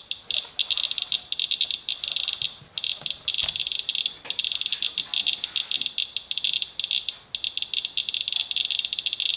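Inspector handheld Geiger counter clicking rapidly in a dense, high-pitched stream that at times runs together, as it counts a rain-soaked paper towel sample at many times background radiation. A few knocks of the meter being handled in the first seconds.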